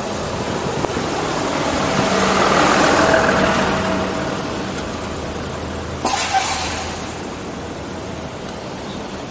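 City bus engine running close alongside, swelling and then fading, over steady street traffic noise. A sudden sharp hiss comes about six seconds in.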